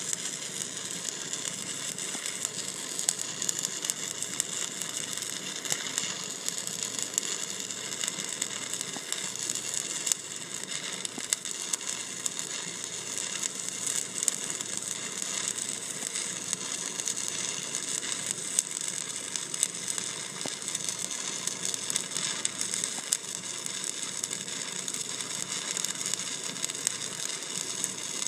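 Stick-welding arc from a 1/8-inch 7018 rod at about 120 amps, crackling and sizzling steadily with many small pops as a vertical-up pass is run.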